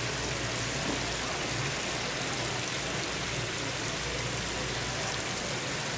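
Aerated water bubbling and running in a live seafood tank, a steady hiss with a low steady hum underneath.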